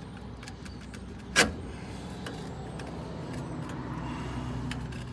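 Exhaust pipe metal knocking and scraping as one section of pipe is worked over another: a single sharp clank about one and a half seconds in, with a few lighter clicks, over a steady low hum.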